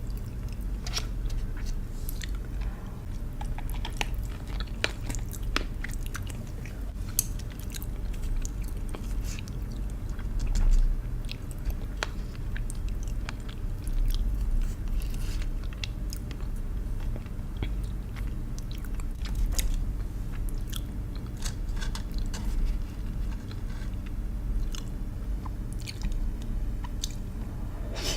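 Close-miked chewing and biting, with many short, sharp crunches scattered throughout, over a steady low hum.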